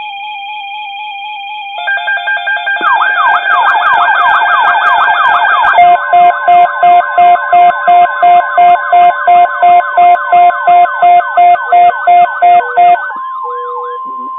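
Several NOAA weather alert radios sounding their alarms together for a severe thunderstorm watch. Steady high tones and a warbling tone are joined about two seconds in by more tones and a fast up-and-down sweeping alarm. From about six seconds in comes loud, rapid beeping about three times a second, which stops about a second before the end. Near the end a single steady alert tone sounds.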